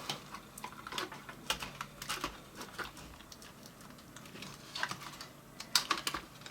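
Scattered light clicks and taps of an 80 GB PATA hard drive and its thin cables being eased out of a Mac mini G4's case, with a quieter stretch midway and a few sharper clicks near the end.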